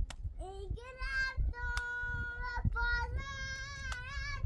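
A child singing in a high voice, drawing out several long held notes one after another, with a few faint clicks.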